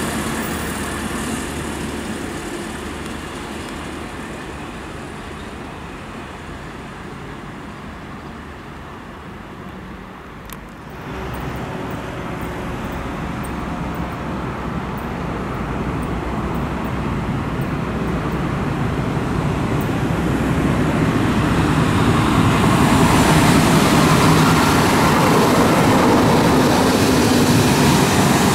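A DB class 218 diesel-hydraulic locomotive approaches while shunting, its V12 diesel engine growing steadily louder until it runs close by. Before it, a class 612 diesel railcar fades away as it pulls off, and that sound cuts off abruptly about ten seconds in.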